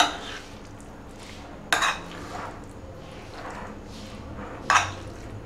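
A metal spoon stirring food in a bowl and clinking sharply against the bowl twice, about three seconds apart.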